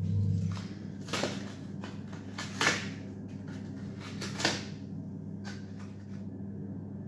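Plastic candle packaging being handled and unwrapped: a few short clicks and crinkles, three of them sharper than the rest, over a low steady hum.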